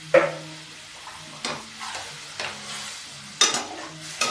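A steel slotted ladle scrapes and knocks against the inside of a pressure cooker, about five strokes roughly a second apart, over a steady sizzle. This is onion-tomato masala with spices being stirred while it fries.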